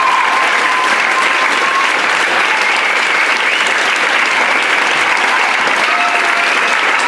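Audience applauding and cheering, loud and steady, with a few shouted whoops over the clapping.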